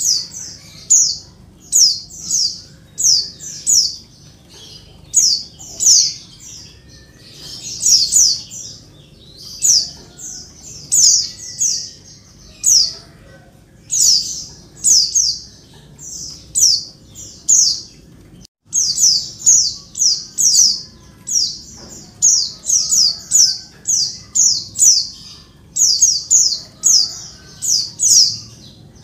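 Female white-eye (pleci) calling noisily: short, high calls repeated in quick groups of two or three, about once a second, with a brief cut about two-thirds of the way through. This is the female call played to prompt male white-eyes to sing.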